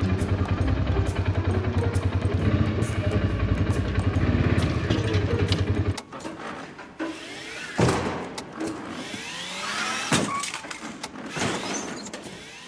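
A utility vehicle's engine running steadily, then cut off suddenly about six seconds in. After that comes a small electric cart in a film scene, a few knocks as it bumps about, and several rising whines.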